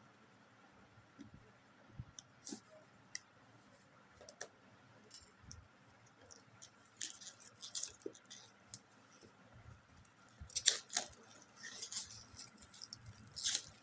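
A phone's box and packaging being handled and opened: scattered clicks, taps and short rustles that grow busier and louder in the second half.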